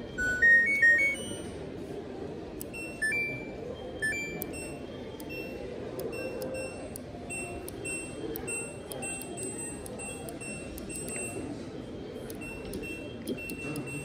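Electronic beeps from appliance control panels: a short run of rising tones about half a second in, a couple more beeps around three and four seconds, then many short, high, scattered beeps over a steady background din.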